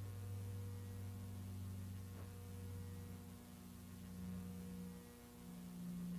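Faint, steady electrical hum made of a few held low tones over light hiss. The lowest tone fades out about halfway through, while a slightly higher one grows stronger near the end.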